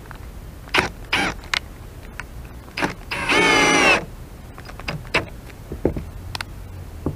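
Milwaukee M12 Fuel cordless drill driving screws into a hinge: a few short trigger blips, then a run of under a second with a slightly rising motor whine, followed by small clicks of handling.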